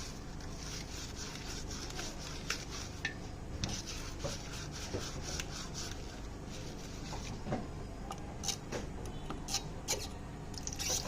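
Scattered small clicks and scraping as washing-machine parts are handled and rubbed during repair work, with a few sharper clicks near the end.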